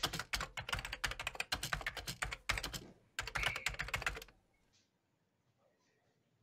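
Rapid, irregular run of sharp clicks, like typing, for about four seconds, with a short break about three seconds in, then stopping.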